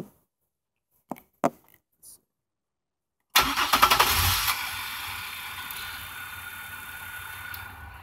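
GM 3800 Series II 3.8-litre V6 starting on the key after a few clicks. It catches about three seconds in with no long crank, runs loud for about a second, then settles into a steady idle. It is a healthy start, the no-spark, crank-no-start fault now cured.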